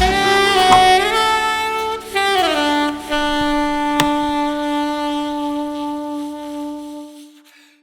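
Background music led by a saxophone: a few notes with slides between them, then one long held note that fades out near the end.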